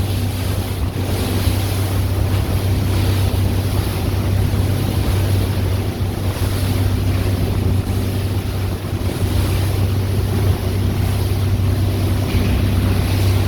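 Motorboat under way: its engine drones steadily, with wind buffeting the microphone and water rushing past the hull.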